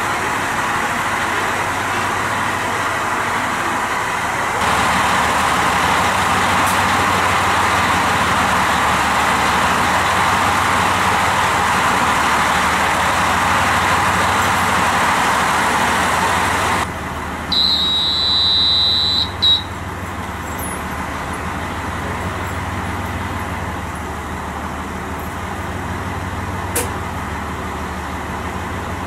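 Diesel railcar of the KiHa 185 series idling at a standstill: a steady engine hum under a haze of noise. About 17 s in, a high tone sounds for about two seconds.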